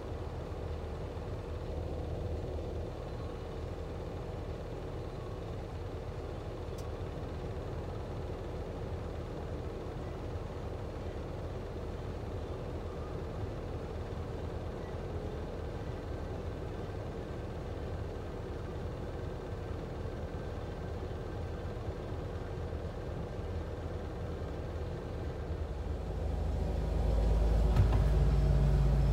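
Diesel engines of Kenworth prime movers running at low speed as the B-double trucks pull away and turn, a steady low rumble. Near the end it turns louder and deeper.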